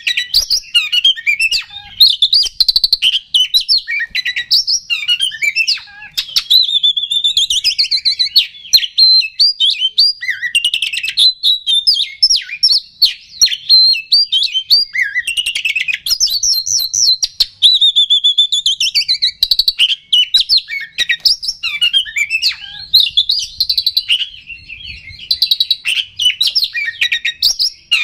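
Oriental magpie-robin (kacer) singing non-stop: a fast, varied run of clear whistles, rapid chattering trills and sliding notes with only brief breaks. This is the vigorous full song ('gacor') used as a lure to rouse other magpie-robins.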